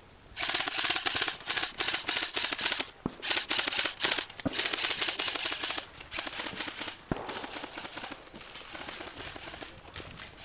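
Airsoft guns firing on full auto in rapid bursts, loud for the first six seconds or so, then lighter, more distant fire.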